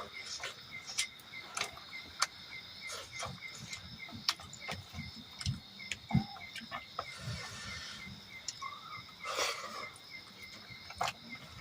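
Close-up eating sounds: irregular wet clicks, smacks and soft chewing knocks. Behind them, insects chirp steadily, about three pulses a second.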